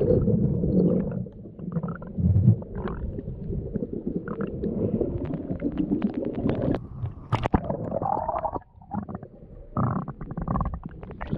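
Muffled, low rumbling and gurgling of sea water churned by swimmers, heard with the microphone in the water. Scattered short clicks and knocks run through it, with one sharper click about seven and a half seconds in.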